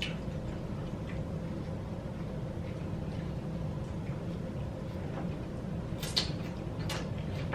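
Close-up eating sounds of fried chicken wings: quiet chewing with a few sharp mouth smacks, the clearest two about six and seven seconds in, over a steady low hum.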